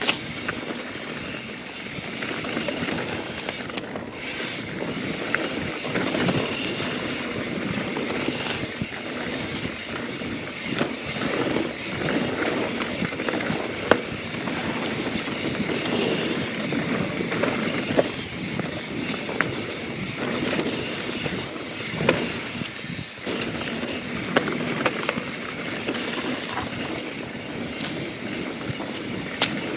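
YT Jeffsy 27 mountain bike rolling along a dirt trail: steady tyre and wind noise, broken by frequent short rattles and knocks as the bike goes over rocks and bumps.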